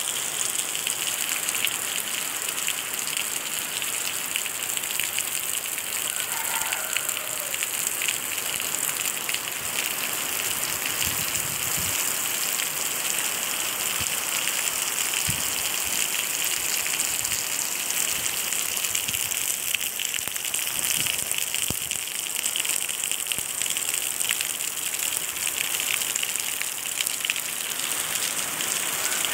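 Heavy rain pouring steadily onto muddy ground and puddles: a dense, even hiss of drops.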